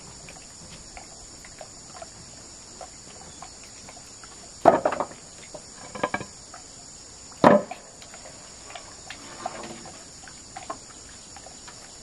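Steady insect chorus, with three louder knocks about five, six and seven and a half seconds in.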